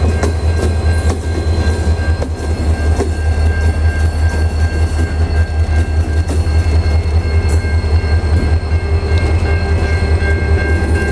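Diesel locomotives CLF6 and GWU004 hauling a grain train slowly while shunting: a deep, pulsing engine throb with scattered wheel clicks. A steady high tone sounds above it.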